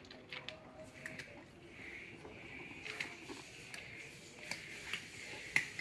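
A cat eating dry kibble from a plastic gravity-feeder bowl: faint, irregular crunches and clicks over a soft hiss.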